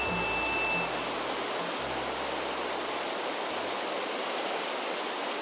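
Steady rushing of a fast river, with the last low notes of background music ending about three and a half seconds in.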